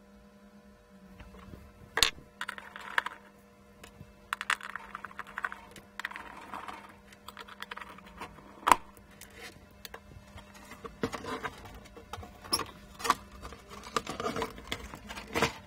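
Hand screwdriver undoing screws in a sheet-metal equipment case, with scattered clicks, light metallic knocks and scraping rattles as the screws and the cover panel are handled. The sharpest clicks come about two seconds in, near the middle and just before the end, over a faint low hum.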